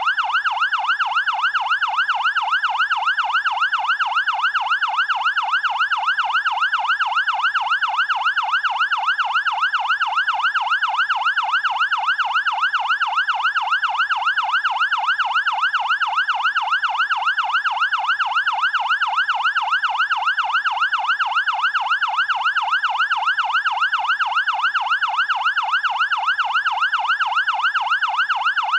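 Fire engine's electronic siren in a fast yelp, its pitch sweeping rapidly up and down about three times a second, evenly and without a break.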